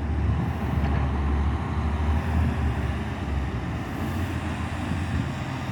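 Diesel engines of heavy construction machinery and trucks running, a steady low engine noise with no distinct impacts.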